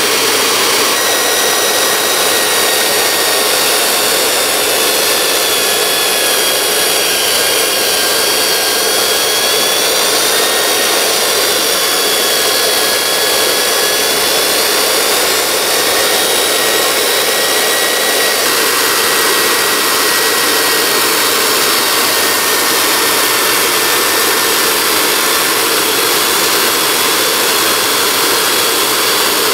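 Dumore toolpost grinder running, its wheel taking light cuts on the 60-degree headstock center of a South Bend 9-inch lathe: a steady hissing grind with a faint whine that wavers slightly in pitch.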